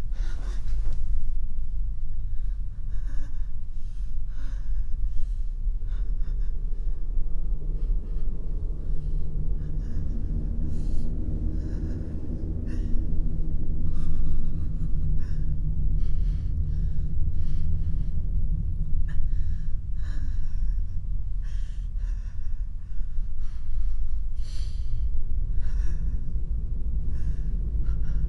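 Horror-film sound design: a low, steady drone with a higher hum swelling up in the middle and fading again. Over it comes a person's heavy, uneven breathing and gasps.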